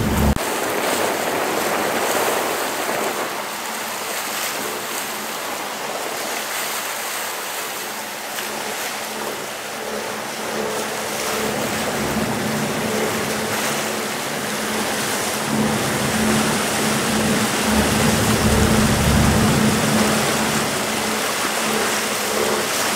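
Wind and water rushing past a sailboat under way on choppy open water, over a faint steady low hum. Wind buffets the microphone with low rumbling gusts at the very start and again in the later part.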